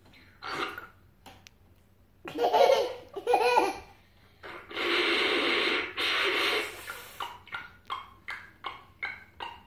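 A child laughing: a few loud laughs, a longer breathy stretch of laughter, then a run of short bursts, about two a second, that trail off.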